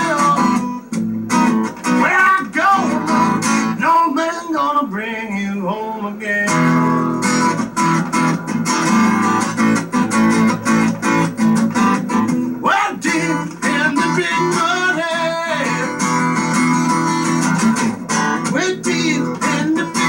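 Blues played on a strummed acoustic guitar, with a man singing over it in parts.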